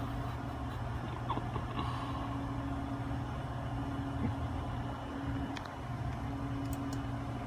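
Steady low mechanical hum, with a fainter tone that cuts in and out every second or two and a few faint clicks.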